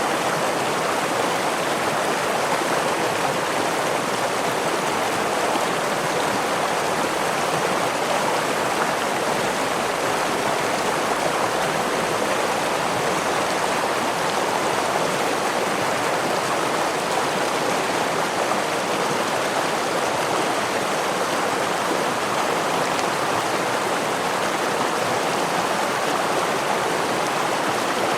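Steady rush of a stream flowing over a small waterfall, an even water noise that doesn't change.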